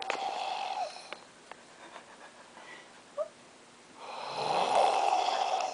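A sleeping woman snoring loudly: one snore fades out about a second in, and after a pause of about three seconds a louder, longer snore begins.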